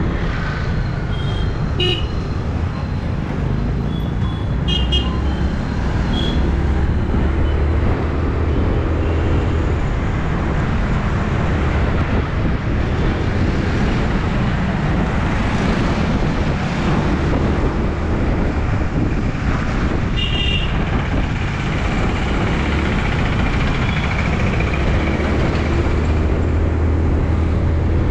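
Yamaha R6 sport motorcycle with an Akrapovic exhaust running steadily while riding in city traffic, under a constant rush of wind and road noise. Short vehicle horn toots sound several times in the first six seconds and once more about twenty seconds in.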